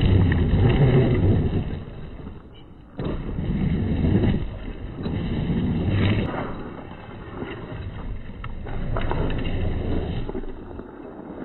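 RC scale 4x4 truck driving over gravel and loose dirt: its motor running and its tyres crunching and throwing up stones and soil. The sound drops away and cuts back in abruptly about three seconds in.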